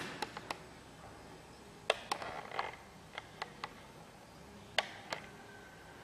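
Quiet room with a scattering of short, sharp clicks and taps, about ten in all, irregularly spaced.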